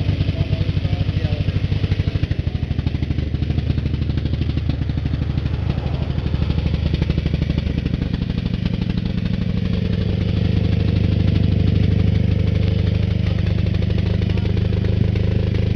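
Single-cylinder diesel generator engine running steadily with a fast, even pulsing beat; it gets a little louder about ten seconds in.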